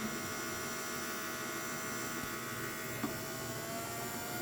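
Small electric motor of a mini washing machine running with a steady hum, with a light click about three seconds in and a faint tone rising slowly after it.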